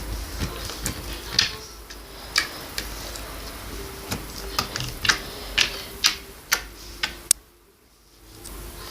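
Slime being squeezed and pressed, giving sharp, irregular clicks and pops as air is forced out of it, over a faint steady hum. It goes nearly silent for about a second near the end.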